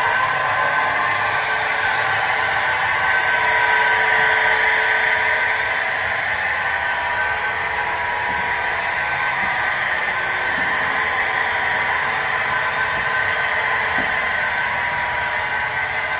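Märklin HO model of an SBB Re 460 electric locomotive running along the track: a steady electric-motor whine over the hiss of wheels rolling on the rails, loudest about four seconds in.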